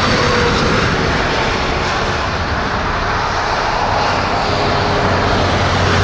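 Steady roar of road traffic, with a car passing close by near the end.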